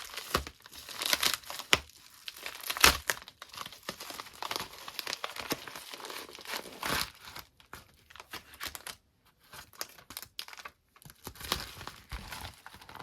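Packaging being handled and torn open, with irregular crinkling and rustling and bursts of tearing, sparser in the second half.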